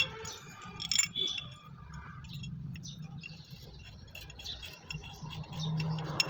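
Metal clinks and light rattling of bolts and a spanner on small diesel engine parts as bolts are fitted during reassembly. There are two sharp ringing clinks near the start, about a second apart, then smaller scattered ticks.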